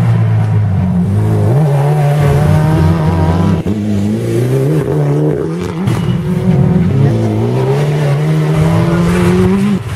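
Rally car engine at full throttle on a gravel stage. Its note climbs and drops back several times as it shifts gears. The sound cuts off suddenly near the end.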